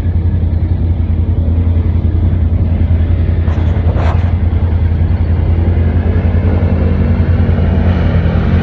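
Off-road vehicle engine running steadily at a low, even idle, with a brief higher-pitched sweep about four seconds in.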